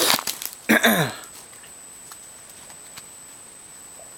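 Trading-card pack wrapper crinkling as it is torn open and handled, for about the first second, ending with a short falling sound. After that there are only a few faint ticks of cards being handled.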